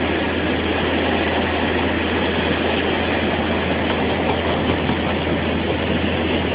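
Engine of a mobile elevated work platform running steadily, a constant low hum under an even rushing noise.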